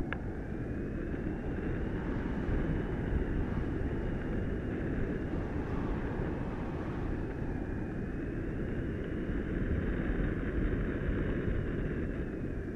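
Airflow rushing over the action camera on an Easy Glider Pro RC glider, gliding with its electric motor off. There is a steady rush and a faint high whine that slowly rises and falls in pitch.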